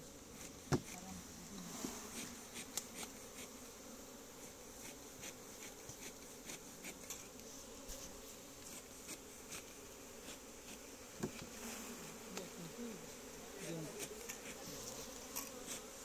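Many honey bees buzzing in a steady, wavering hum around an open wooden hive. Short clicks run over it, with a sharp knock about a second in and another about two-thirds of the way through.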